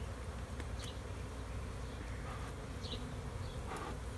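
Honey bees buzzing steadily around an open hive, with single bees now and then flying close past. A short puff from a bee smoker's bellows comes near the end.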